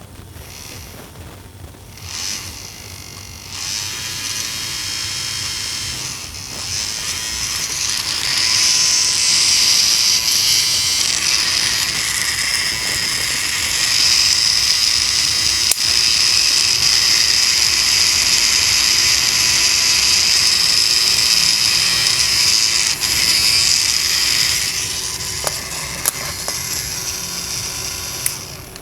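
Small electric fan motor of a mini air conditioner running with a steady whirr and high whine. It gets louder in steps over the first several seconds, holds steady, then drops back near the end, with a sharp click or two along the way.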